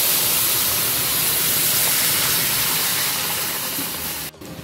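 Heated water poured into a hot pan of oil-fried rice and moong dal, sizzling and hissing loudly as it turns to steam. The hiss holds steady, eases slightly, then cuts off abruptly near the end.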